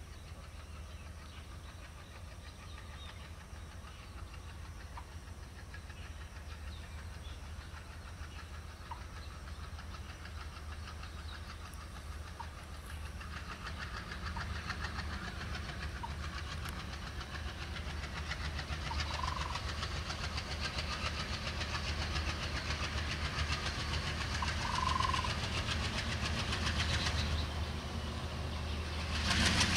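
Indian Railways ALCO-type diesel locomotive drifting slowly toward the listener at the head of a passenger train, its engine's low throb and the rattle of the train growing steadily louder. A brief loud burst of noise comes near the end.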